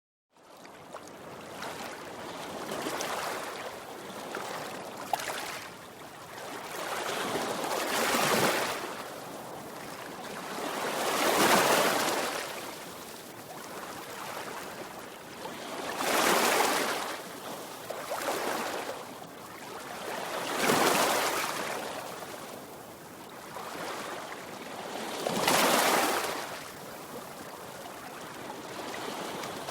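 Sea waves breaking. The surf swells to a loud crash and washes back about every four to five seconds, six times.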